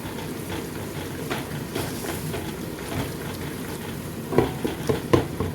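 Curry masala of onion, tomato and spices frying in oil in a pot, sizzling steadily as it is stirred, with a few louder spoon knocks against the pot near the end.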